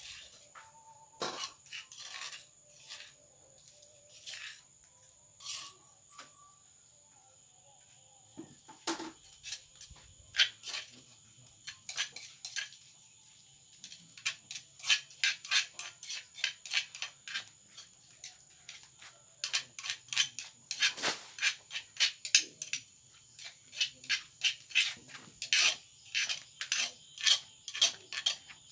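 Metal spoon scraping and tapping against the inside of a hand-held bowl as its contents are scooped out, in runs of quick clicks with pauses between; the clicks come thickest in the second half.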